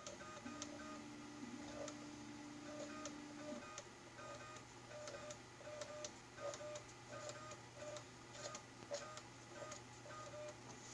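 Sparkmaker SLA resin printer's Z-axis stepper motor jogging the build platform in one-millimetre steps, a short whine with a click repeating about twice a second. For about three seconds near the start a steadier low tone runs under it.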